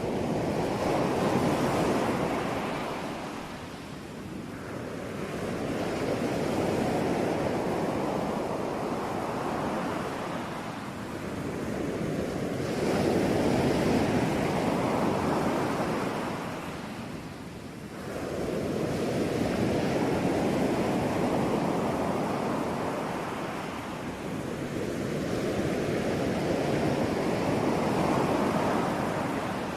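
Ocean surf: waves breaking and washing in, the rush of water swelling and falling back every four to six seconds, with some wind.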